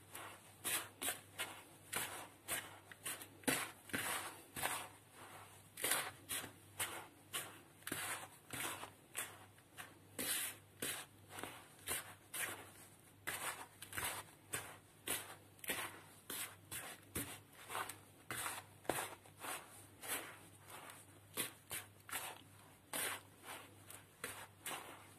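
A hand mixing and rubbing a dry flour, semolina and sugar mix with ghee in a plastic bowl: rhythmic rustling scrapes of fingers through the powder and against the bowl, about two strokes a second.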